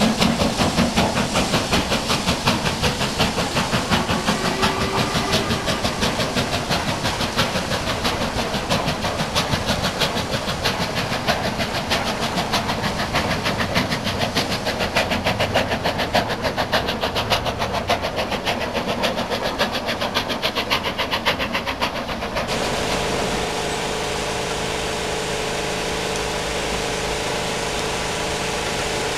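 Steam locomotive working a passenger train past at speed, a rapid, even beat of exhaust and wheel clatter over a steam hiss, fading as it draws away. About 22 seconds in this gives way abruptly to a steady low hum with a faint held tone.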